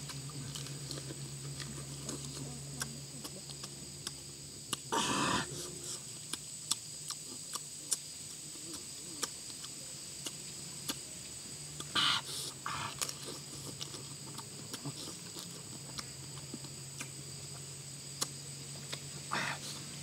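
Mouth sounds of a person eating cooked crab by hand: many small wet clicks and smacks of chewing and sucking at the meat, with a few louder short sucking noises, about a quarter of the way in, just past halfway and near the end. A steady high insect drone runs underneath.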